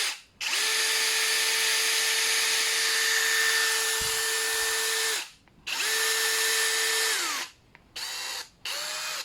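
Prostormer 20V brushless cordless hammer drill spinning free in forward with a steady high motor whine. A run of about five seconds is followed by one of about two seconds that winds down in pitch, then two short trigger blips near the end.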